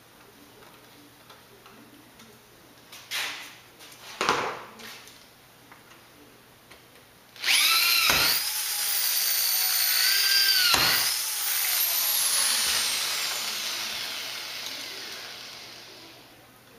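Power drill boring through square aluminium tubing and its frame connector: a high motor whine that dips in pitch twice as the bit bites, then slows and fades. A couple of light knocks come before it.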